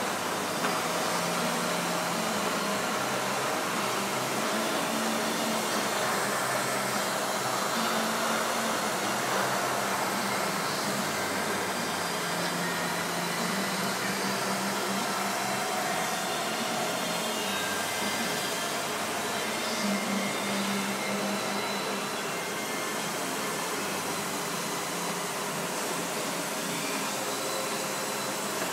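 A machine running steadily with a whirring, airy noise and a low hum that comes and goes.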